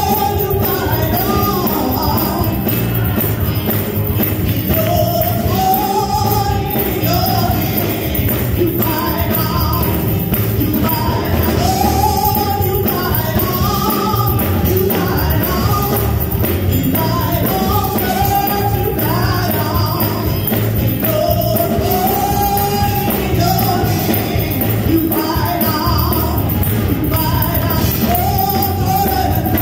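A woman singing a gospel song solo into a microphone, holding and bending long notes over a continuous instrumental accompaniment.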